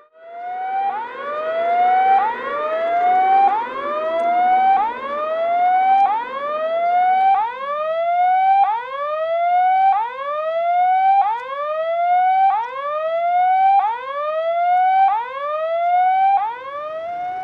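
Electronic level-crossing warning signal: a tone that glides upward in pitch, repeating about every 1.3 seconds, with two out-of-step series overlapping for the first several seconds. It stops abruptly near the end, as the barriers come down.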